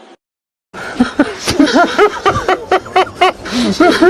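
A brief cut to silence, then from under a second in a person laughing hard in quick repeated bursts.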